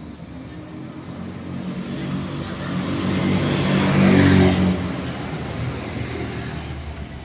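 A motor vehicle passing by, its engine and road noise growing louder to a peak about four seconds in and then fading away.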